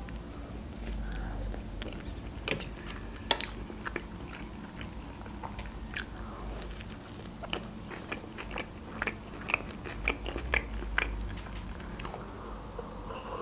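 Close-miked biting and chewing of an open sprat sandwich with cream cheese, lettuce and pickled cucumber: irregular wet mouth clicks and crunches.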